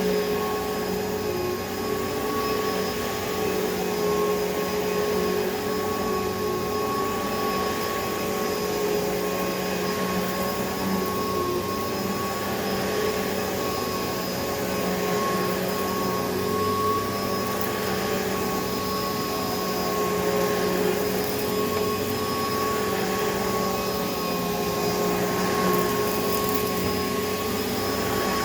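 2007 Hoover Elite Rewind upright vacuum cleaner running steadily: a constant motor whine on several fixed pitches over a rush of air. Its motor has recently been cleaned out of grass that had got inside.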